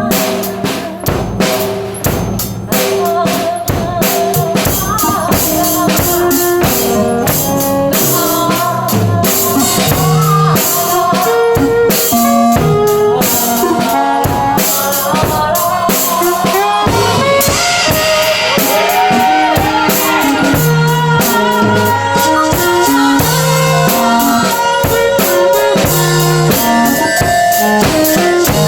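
Live band improvising: a drum kit with bass drum, snare and rimshots keeps a busy beat under moving low notes and melodic instrument lines.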